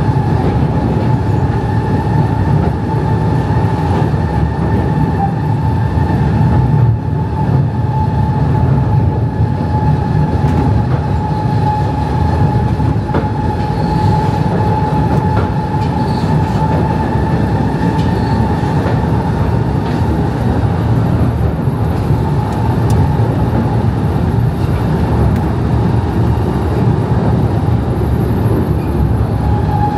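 Small battery-electric Mail Rail train running along its narrow-gauge track: a steady low rumble of wheels on rail under a constant high electric whine, with a few faint clicks.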